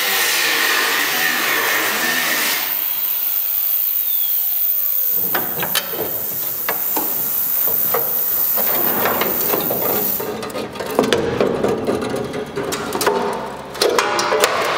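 Workshop power tool on sheet steel: a steady high whine that stops and then winds down in pitch. It is followed by a run of irregular knocks and hammer taps on sheet metal that come thicker near the end.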